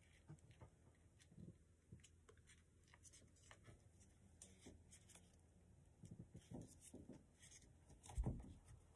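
Faint rustling and light crinkling of paper being creased and pushed into inside reverse folds by hand, with a soft thump about 8 seconds in.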